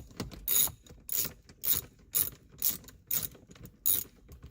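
Hand ratchet backing out a fastener, its pawl clicking in a short rasp on each return stroke, about two strokes a second.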